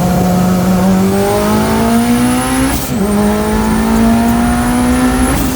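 A car engine accelerating through the gears, its pitch climbing steadily. It drops sharply at an upshift about three seconds in, climbs again, and shifts once more near the end.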